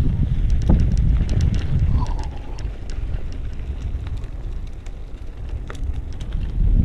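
Wind rumbling on the microphone of a moving e-bike on a dirt trail, with scattered small ticks and rattles; it eases off in the middle and picks up again near the end.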